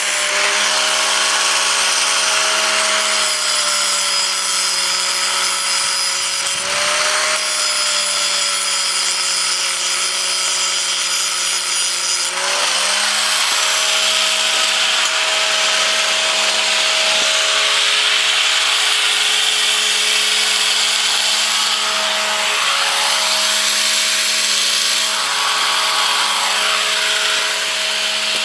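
Electric grinder running and grinding off the ends of steel bolts: a steady motor whine over a harsh hiss. The whine sags in pitch under load and picks back up about twelve seconds in.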